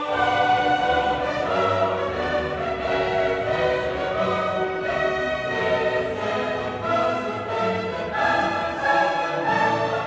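Orchestral classical music with a choir singing, laid over the drive as a soundtrack.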